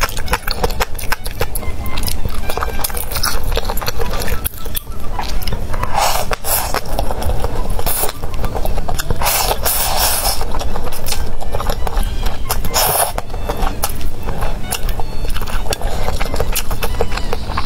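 Close-miked eating of spicy instant noodles: chewing and clicking mouth sounds with a few louder, longer slurps, over background music.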